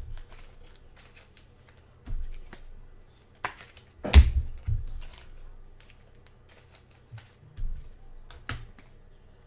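Sports trading cards being handled and flipped through: scattered light clicks and rustles, with a sharper knock about four seconds in.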